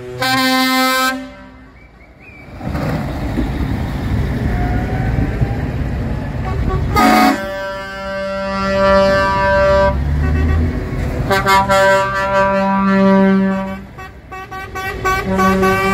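Heavy trucks' air horns sounding a series of blasts, some short and some held for a couple of seconds, over the low rumble of the lorries' diesel engines as they pull away, the rumble swelling as one truck passes.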